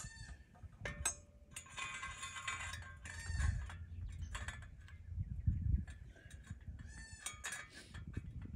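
A goat bleating, one long call about two seconds in, with shorter animal calls near the start and again near the end, over a low outdoor rumble.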